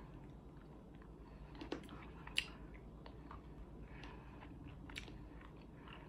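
Faint close-up mouth sounds of people chewing miracle berries, with a few small wet clicks, the sharpest about two and a half seconds in.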